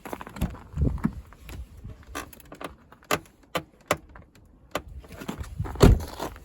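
Car door check straps (door limiters) creaking and clicking as the door is worked, with a string of sharp clicks in the middle and a few heavier thumps, the loudest near the end.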